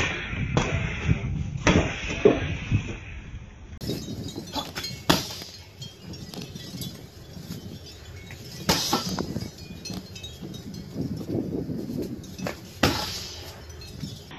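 Punches, knees and kicks landing on a tall hanging heavy bag in bursts of combinations, each strike a sharp thud.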